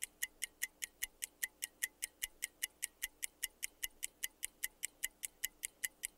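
Fast, even ticking of a stopwatch timer sound effect, about five sharp, high ticks a second.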